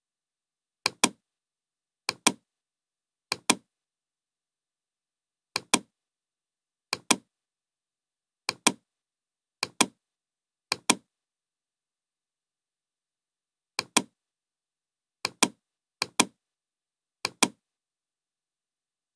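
Computer mouse button clicking about a dozen times in quick pairs, each pair a sharp click followed a fraction of a second later by a slightly louder one. Nothing else is heard between the clicks.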